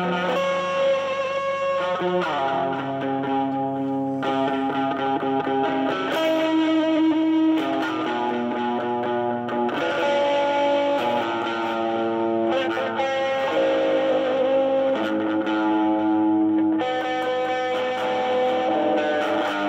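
Stratocaster-style electric guitar played alone through an amplifier with effects: a lead line of held single notes, with a few bends and a wavering, vibrato note in the second half.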